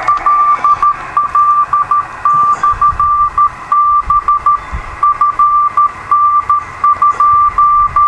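Morse code from a 2-metre CW beacon heard through a Yaesu FT-897 receiver's speaker: a single steady high tone keyed on and off in dots and dashes, over a background of receiver hiss.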